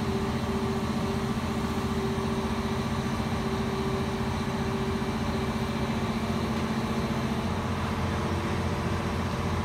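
Diesel engine of a Liebherr LR1300 crawler crane running steadily while it lowers a suspended excavator on a lifting tray: an even low drone with a fast, regular pulse.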